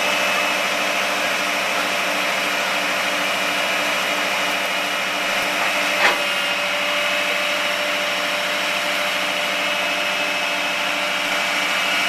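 Aerial ladder truck's hydraulic system running with a steady whine and a pulsing low hum as the firefighter works the outrigger and aerial controls, with a single sharp click about halfway through.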